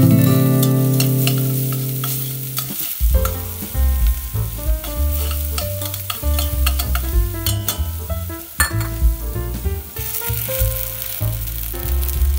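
Sliced shallots sizzling in hot oil in a stainless steel saucepan, stirred with metal tongs that clack against the pan now and then. Background music with held notes and a bass line plays under it.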